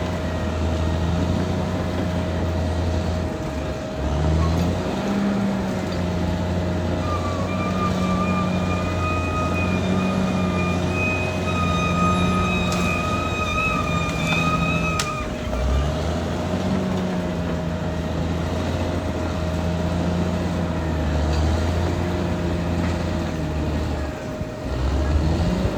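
Caterpillar D6R XL bulldozer working, its diesel engine running loud and steady, with the engine note dipping briefly about four seconds in and again just past midway. A thin high squeal sounds for several seconds in the middle.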